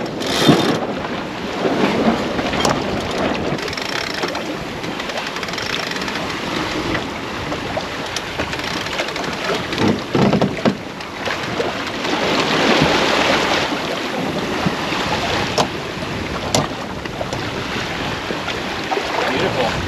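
Wind and water rushing past a sailboat under sail, swelling and easing every few seconds as it moves through the waves, with wind buffeting the microphone. A few sharp clicks or knocks come through, one near the start and a couple about three-quarters of the way in.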